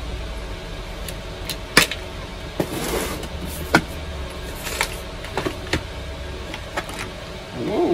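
Unpacking and handling noises: a small wooden accessory box knocked and set down on a plywood workbench, with cardboard packaging rustling. A few sharp clicks and knocks, the loudest about two seconds in, over a steady low hum.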